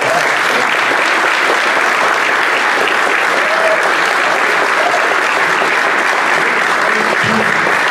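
Audience applauding, a dense steady clapping that starts at once and keeps going without letting up.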